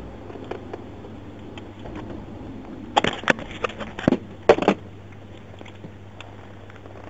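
Police car two-way radio: a steady hum with a cluster of short crackles and clicks about three to four and a half seconds in.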